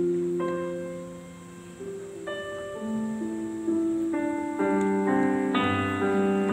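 Piano playing the slow opening of a worship song: held chords changing every half second or so, filling out with more notes and a low bass coming in near the end.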